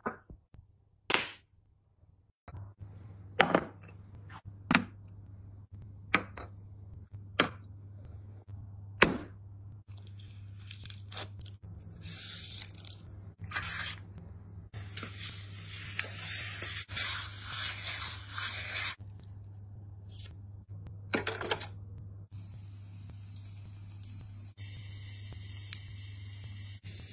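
Kitchen cooking sounds: a series of sharp knocks, then meat sizzling in a hot pan for several seconds, over a steady low hum.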